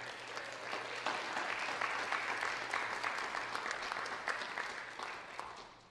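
Audience applauding, a dense patter of many hands clapping, which dies away near the end.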